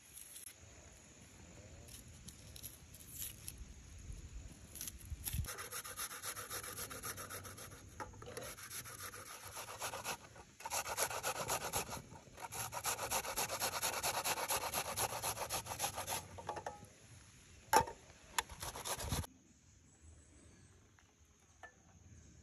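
A peeled onion being grated on a stainless-steel box grater: fast, rhythmic rasping strokes in two long runs with a brief pause between them. Near the end come two sharp knocks, the loudest sounds, and then the grating stops.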